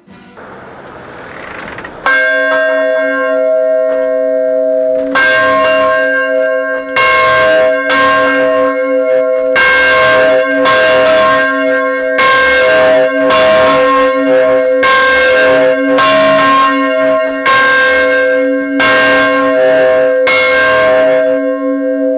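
1817 Paul Revere church bell, swinging in its white oak cradle and ringing. Its clapper strikes about once a second, often in quick pairs, from about two seconds in, and each stroke's hum hangs on between strikes.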